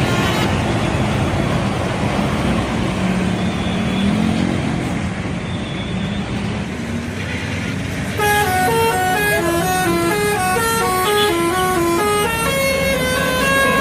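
Bus engine and road noise, then about eight seconds in a telolet horn starts playing a quick tune of short notes that jump up and down in pitch.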